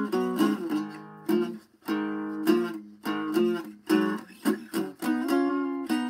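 Small acoustic guitar being picked and strummed: plucked chords and single notes that ring on, with a brief gap about a second and a half in.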